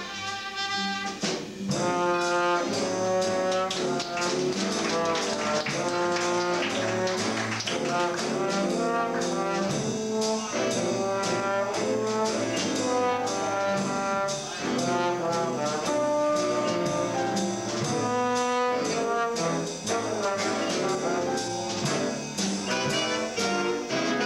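Jazz big band playing live, the brass section of trumpets and trombones carrying the melody in shifting phrases over drums.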